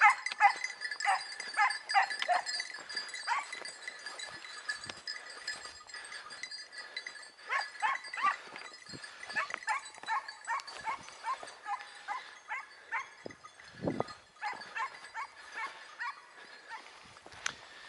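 Hunting hounds baying in runs of short, high yelps, several a second, coming in bursts: dogs giving tongue on the trail of a hare. A faint steady ringing, fitting bells on the dogs, carries underneath.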